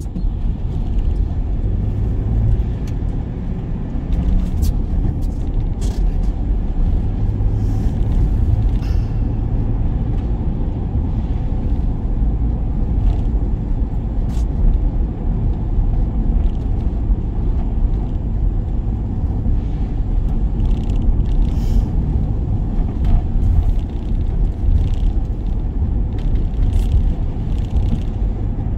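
A van's steady low rumble, heard from inside the cabin, with scattered light ticks and a few short hisses.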